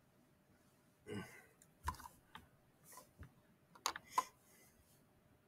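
Faint scattered clicking: about half a dozen short clicks between about two and four and a half seconds in, with a soft breath about a second in.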